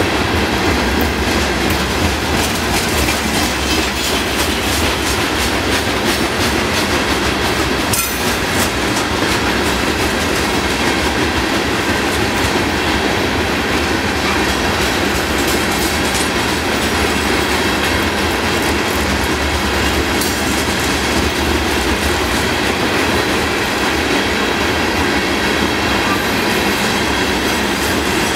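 Freight train hopper cars rolling slowly past, steel wheels clacking over the rail with a steady, loud rumble.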